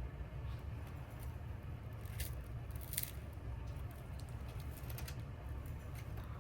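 Scattered light clicks and small scrapes of a pry tool working a cracked iPhone screen loose from its frame, over a steady low hum.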